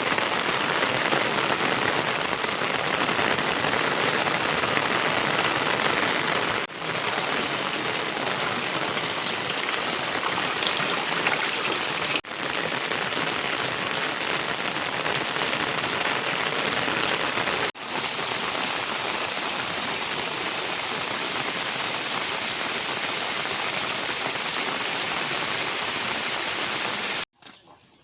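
Steady rain falling, an even hiss that briefly drops out three times and stops just before the end.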